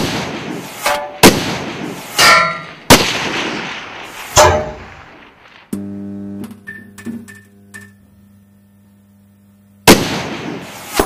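Intro logo sound design: a run of sharp, heavy, gunshot-like impacts, each with a ringing decay, over the first few seconds. Then a low steady hum with a few clicks, and one more heavy hit near the end.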